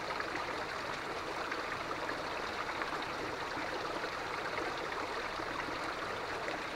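Small stream running steadily over rocks and fallen branches.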